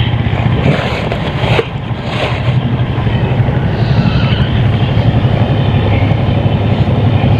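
A small engine running steadily, a low drone with a fast even pulse that holds level throughout.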